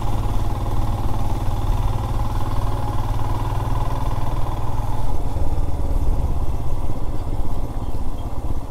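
Single-cylinder motorcycle engine running while riding, with rushing noise over it. About five seconds in, the engine note changes from a steady tone to a rougher, uneven rumble.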